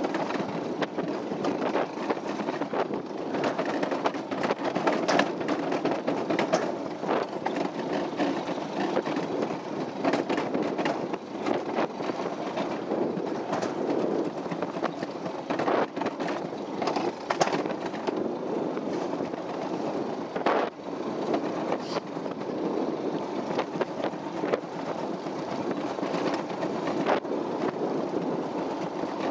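Summer toboggan sled running down a steel trough track: a steady rumbling rattle with frequent sharp knocks throughout.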